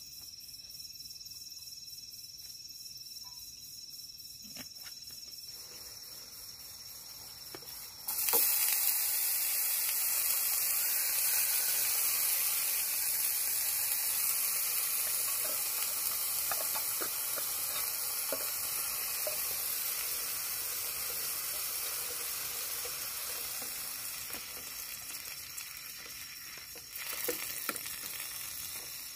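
Food sizzling in hot oil in a small non-stick pan on a portable butane gas stove. The sizzle starts suddenly about eight seconds in as the food goes into the pan, slowly dies down, and flares again briefly near the end, with a few light knocks of a wooden spatula stirring. Before the sizzle there is only a faint steady high insect drone.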